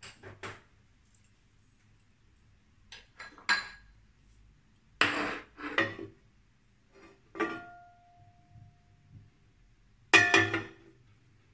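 Scattered clinks and knocks of a non-stick frying pan and kitchen things being handled on the hob, one of them ringing on for a second or so. The loudest cluster of clinks comes near the end, as the pan is tilted to spread the heating oil.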